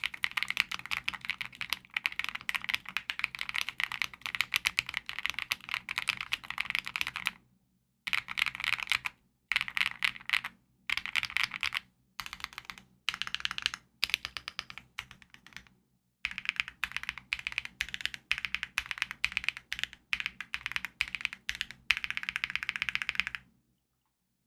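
Fast typing on a mechanical keyboard fitted with Akko switches, a steady run of key clacks. The typing then goes on in shorter runs with brief pauses and stops about a second before the end.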